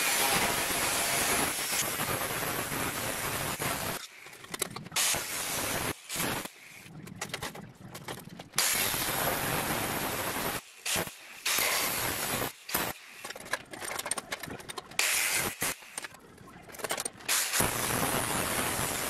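Angle grinder cutting steel sheet. It runs steadily for about four seconds, then in shorter runs of one to two seconds broken by brief pauses and quick bursts as the cut is worked along the edge.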